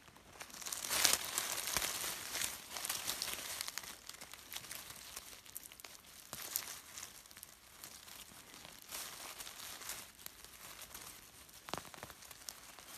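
Dry leaf litter and soil rustling as a hand digs into the forest floor and pulls up clumps of red club-shaped plants. It is loudest in the first three seconds, with a few sharp clicks of twigs or stems along the way.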